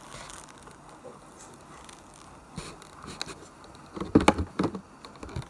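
Kitchen knife cutting a peach on a wooden cutting board: a couple of light clicks, then a quick cluster of knocks about four seconds in.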